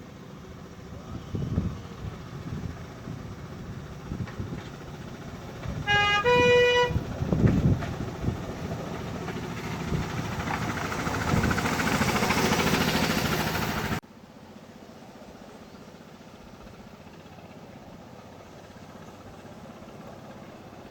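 Petrol-hydraulic miniature railway locomotive sounding two short horn toots about six seconds in, then its engine growing louder as it approaches, until the sound cuts off abruptly.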